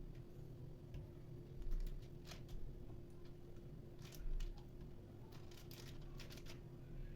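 Light clicks, taps and rustles of kitchen items being handled and set down, with two dull thumps and a faint steady hum underneath.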